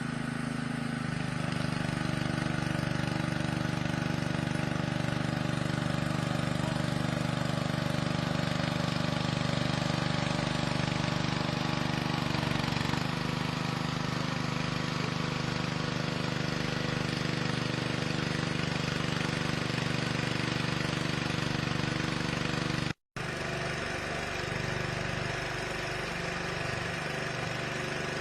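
A heavy engine running steadily at idle, with an even low hum and a very brief cut-out near the end.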